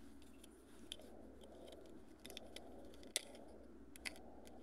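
Faint scattered clicks and scraping of plastic as a Lexus key fob's snap-together case is pried apart by hand, the sharpest click about three seconds in. The clips are stiff and holding tight.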